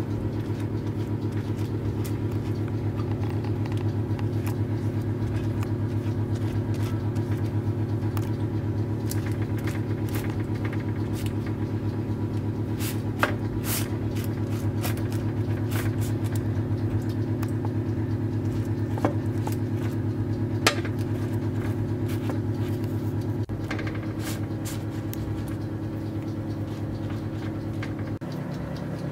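A steady low mechanical hum, as of a motor or fan running, with a few light clicks. The hum drops slightly a few seconds before the end.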